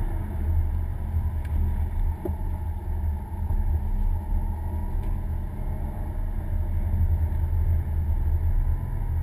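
Subaru WRX's turbocharged flat-four engine running steadily with tyre and road noise, heard from inside the cabin while driving, as a low, even drone.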